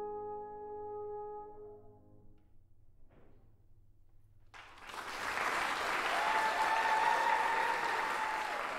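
French horn and grand piano end on a held final note that dies away about two seconds in. After a short silence, audience applause breaks out about four and a half seconds in, with a long high call held over the clapping.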